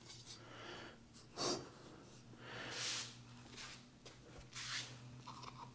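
Faint room tone: a low steady hum with a few soft, brief rustles.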